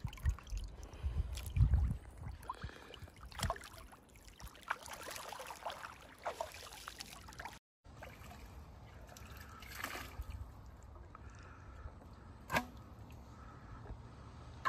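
Lake water sloshing and trickling as a common carp is released by hand from waist-deep water. After a break, a quieter stretch follows with a sharp swish or two near the end from a boilie throwing stick being swung.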